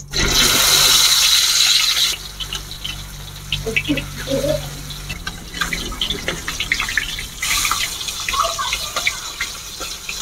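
Marinated fish pieces sizzling as they go into hot mustard oil in an iron wok. A loud hiss over the first two seconds settles into steady crackling and spitting, then a second loud hiss comes about seven and a half seconds in.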